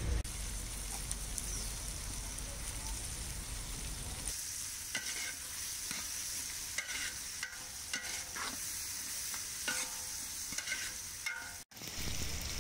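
Onions, green chillies and tomatoes frying in oil in a large metal pot, with the ginger-garlic paste just added. From about four seconds in the sizzle grows brighter and a steel ladle scrapes and stirs against the pot in a run of short strokes. The sound cuts out briefly near the end.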